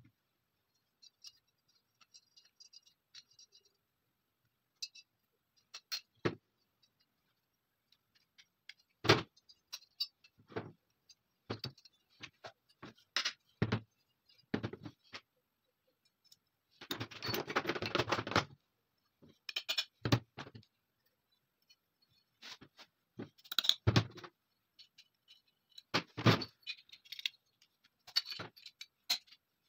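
Small steel parts of a stripped TT pistol being handled and set down on a wooden tabletop: scattered clicks, clinks and knocks, with a longer scraping rattle of about a second and a half a little past the middle.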